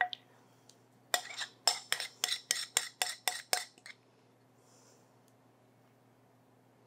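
A utensil knocking and scraping against the inside of a glass mixing bowl as thick dressing is scraped out: about ten quick sharp clicks, roughly four a second, that stop about two thirds of the way through.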